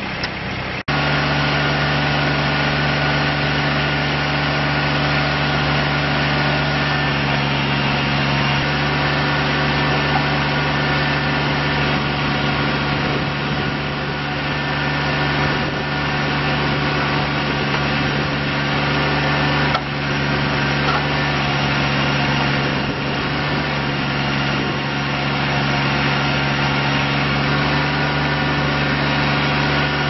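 Kubota BX25D compact tractor's three-cylinder diesel running steadily while the backhoe boom and bucket are worked on its hydraulics. A sudden break just under a second in, after which it is louder.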